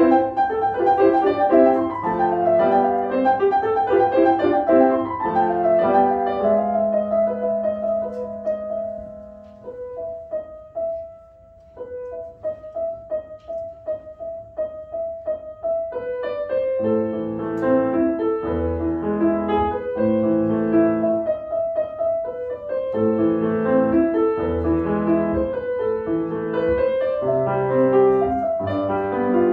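Grand piano played solo, a classical piece: flowing melody over chords, dropping to a soft passage of sparse repeated high notes about ten seconds in, then fuller, louder chords again from around seventeen seconds.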